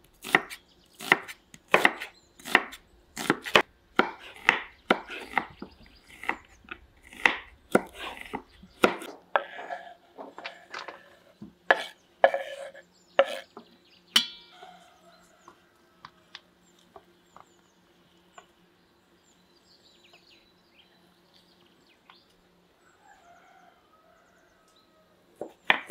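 Kitchen knife slicing vegetables on a wooden cutting board: even chopping strokes about two to three a second, thinning out about nine seconds in. Only occasional soft cuts follow, until a quick run of strokes near the end.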